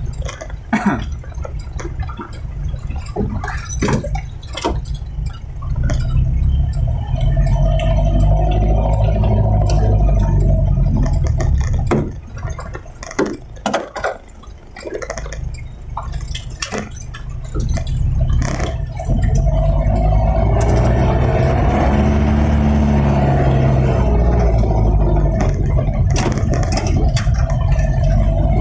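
Unladen Mitsubishi Canter light truck's diesel engine running on the move, heard from inside the cab, with many sharp knocks and rattles as it travels a rough road. The engine drops back with scattered clicks for a few seconds in the middle, then from about two-thirds of the way through runs steadily louder, its pitch rising and falling with the throttle.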